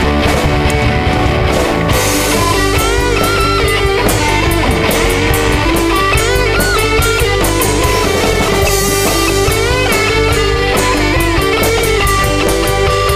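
Punk-rock band playing: distorted electric guitar, bass and drum kit, with a wavering melody line coming in about two seconds in.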